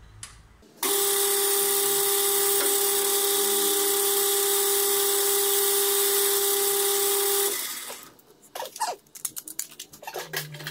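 Metal lathe running while a drill bit in the tailstock chuck bores into an aluminium (Ergal) workpiece: a steady whine with a hiss, starting about a second in and dying away around three-quarters of the way through. A few light clicks and rattles follow near the end.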